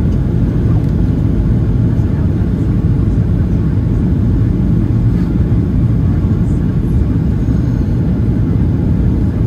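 Steady low rumble of a Ryanair Boeing 737-800's engines and air noise, heard inside the passenger cabin.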